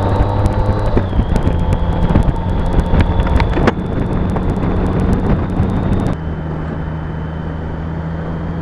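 BMW K75's three-cylinder engine running steadily at cruising speed, with wind rushing over the microphone. Crackling clicks in the wind noise stop abruptly about six seconds in.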